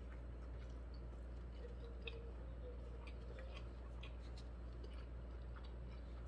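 A man chewing food with his mouth closed: faint, scattered soft wet clicks over a steady low hum.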